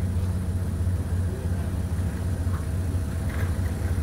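A motor vehicle's engine idling steadily, a low, even hum.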